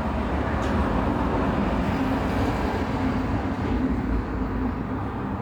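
A steady machine hum with an even rushing noise, unchanging in level.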